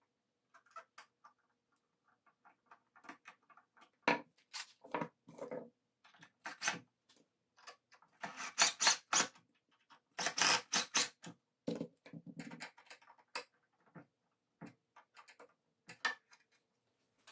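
Cordless drill driving small screws into the hinges of wooden slats in two short runs, about eight and ten seconds in, among scattered clicks and knocks of wood and hardware being handled.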